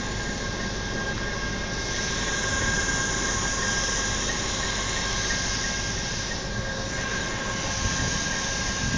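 Diesel locomotive engine idling with a steady drone and a constant high whine. A hiss swells from about two seconds in and fades near seven seconds.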